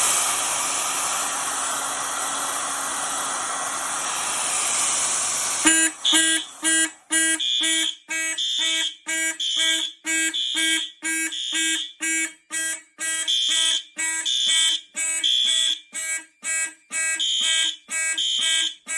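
An electric hot-air blower runs steadily on a heat detector for about six seconds and then stops. Fire alarm horns, including a System Sensor P2W on high volume, then sound in march-time code, sharp pulses about two a second, which signals the panel has gone into alarm.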